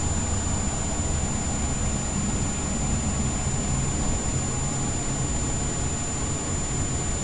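Steady, unchanging rushing noise with a low hum and a thin high whine; no distinct sounds stand out.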